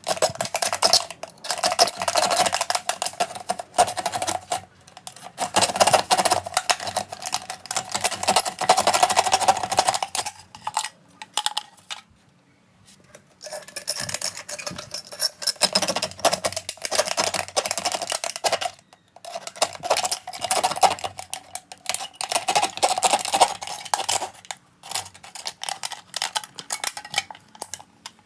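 Thin aluminium cans being cut and handled, a dense run of rapid metallic clicks, crinkles and clinks, played back sped up. It breaks off into near silence about halfway through.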